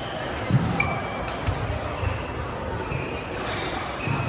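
Badminton play on a court mat: sharp thumps of footwork and racket strikes on the shuttlecock, with a short high squeak just under a second in, over a murmur of voices.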